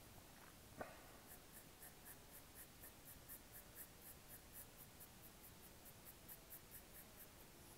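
Chalk pencil scratching on toned drawing paper in a faint, even run of short quick strokes, about four a second.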